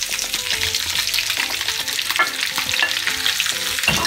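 Thick-sliced onions sizzling and crackling as they are pushed from a plate into hot oil in a frying pan, with a wooden spatula scraping them in.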